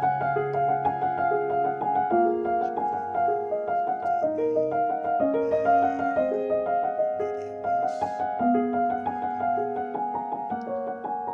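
Background piano music: an unhurried melody of held notes over a steady accompaniment.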